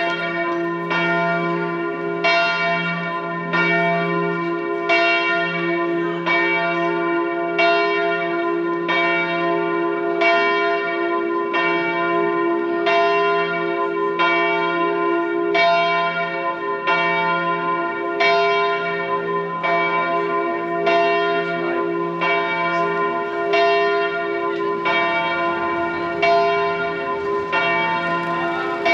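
Church bells of the Augustinerkirche tower ringing in full peal. Strokes come in a steady rhythm a little faster than one a second, with a sustained hum ringing on between them.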